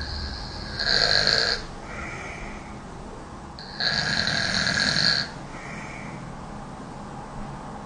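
A woman snoring: two loud snores, about a second in and about four seconds in, each followed by a softer, shorter sound.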